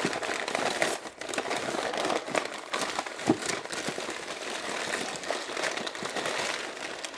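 Packaging crinkling and rustling as something is unwrapped by hand: a steady run of small crackles and clicks.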